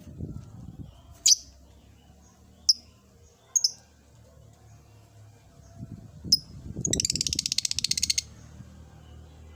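Lovebird in its cage giving sharp single chirps a second or so apart, then a fast, rapid-fire chattering trill lasting a little over a second near the end: the start of its long chatter, called 'ngekek'.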